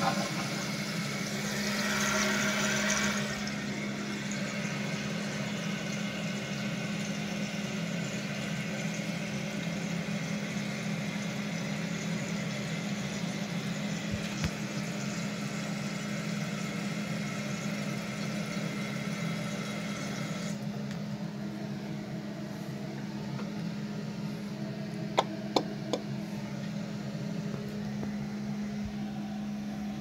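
Jacuzzi Lyndsay toilet tank refilling after a flush: the fill valve hissing as water runs into the tank, loudest for the first few seconds, then shutting off suddenly about twenty seconds in. A steady low hum runs underneath, and three sharp clicks come near the end.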